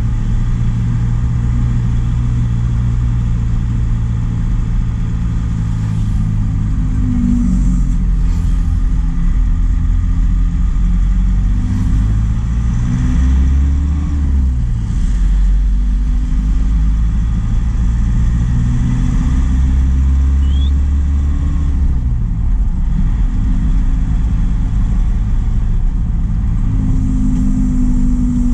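Truck engine running under way, with a deep rumble. Its pitch climbs and then drops back several times as it revs up and eases off.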